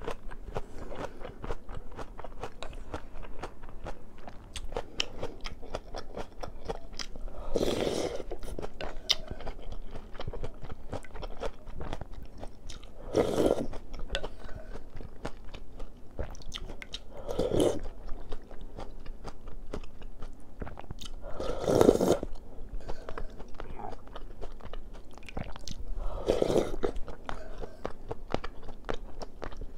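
Close-up eating sounds of a mukbang meal of seolleongtang with rice and side dishes: steady chewing with many small crunches and clicks, right at a clip-on microphone. Louder mouth sounds come about every four to five seconds as spoonfuls are taken.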